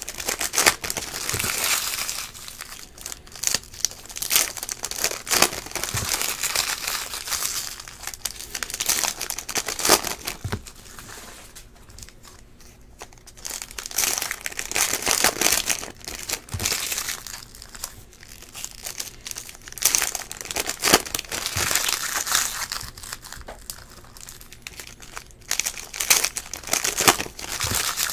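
Foil trading-card pack wrappers crinkling and tearing as the packs are ripped open, in irregular bursts with a short lull about halfway through, along with cards being handled.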